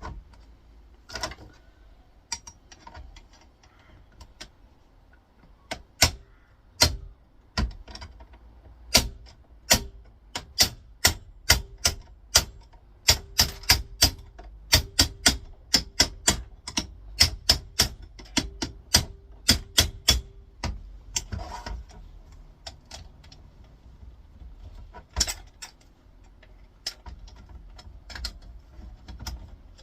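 A run of sharp metallic taps and knocks as a screwdriver is worked as a wedge to free pieces from a monitor's cast aluminium stand. The taps are sparse at first, come thick and fast at about one to two a second from about nine to twenty seconds in, then thin out again.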